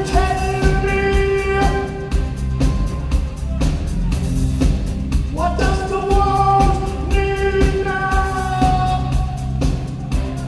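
Live post-punk rock band playing, with drums, bass, guitar and keyboards and a lead singer holding two long sung notes, the second sliding up into pitch about five and a half seconds in; heard from the audience.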